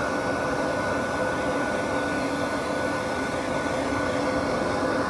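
Professional dog grooming dryer running steadily, blowing air through a dog's coat: an even rush of air with a thin steady whine.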